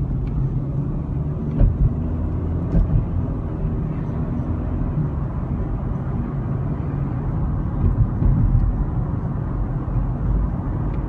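Car driving, heard from inside the cabin: a steady low rumble of engine and road noise, with a few brief thumps about a second and a half in, around three seconds in, and around eight seconds in.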